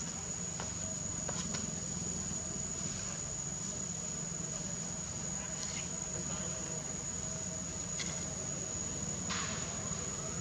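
Insects droning: one steady, unbroken high-pitched whine, with a few faint clicks.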